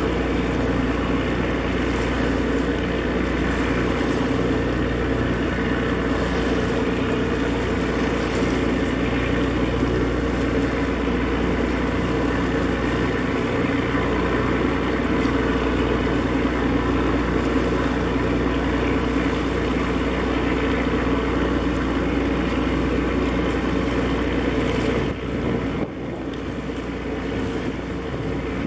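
Steady low drone of a ship's engine working on the harbour water, with a constant low hum, dropping a little near the end.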